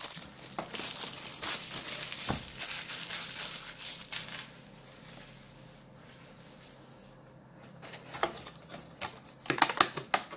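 Plastic shrink-wrap crinkling loudly as it is pulled off a cardboard trading-card display box, for about four seconds. Near the end, a few sharp clicks and rustles of cardboard as the box lid is torn open.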